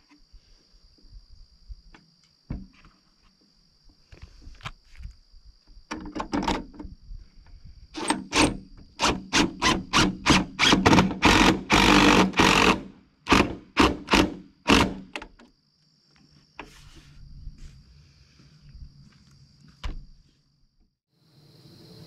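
A run of sharp knocks, like hammer blows, about two or three a second, loudest in the middle and stopping a little past halfway, with scattered lighter knocks before and after. Crickets keep up a steady high trill underneath.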